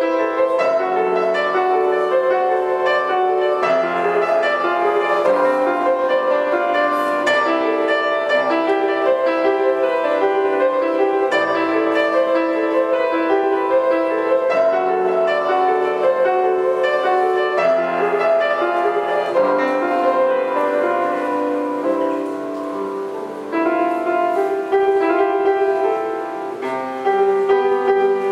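Solo grand piano playing a melodic piece, with a slightly softer passage about two-thirds of the way through.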